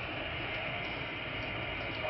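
A steady rushing noise with a low rumble, even throughout, with no distinct events.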